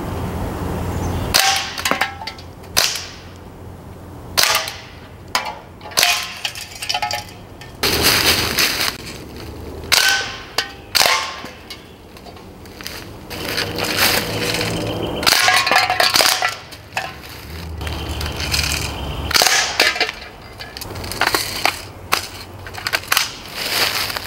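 Umarex Steel Strike CO2 BB rifle firing bursts of rapid shots, with metallic pings and clangs of BBs striking the targets.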